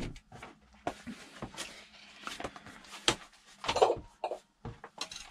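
Scattered light clicks, knocks and paper rustles from a build manual and parts being handled on a workbench, with a slightly louder short sound about four seconds in.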